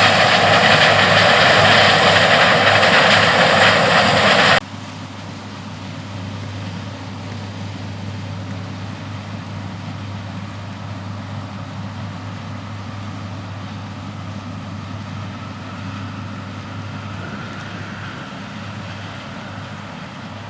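New Holland CR8090 combine running steadily while harvesting corn: a loud machine noise that drops suddenly about four and a half seconds in to a quieter, steady engine drone with a low hum.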